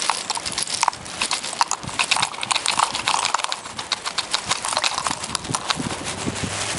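Dozens of small plastic mixer knobs and fader caps poured from a plastic bag into a plastic tub, clattering in a rapid, irregular run of clicks and knocks.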